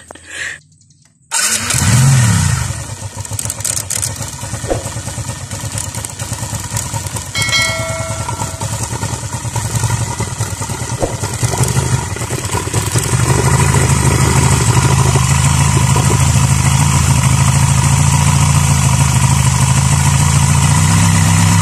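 Suzuki Smash 115's 112 cc single-cylinder four-stroke engine starting about a second in with a quick rev, then running, louder and steadier from about thirteen seconds on, just after its valve clearances have been set. A short electronic chime about seven seconds in.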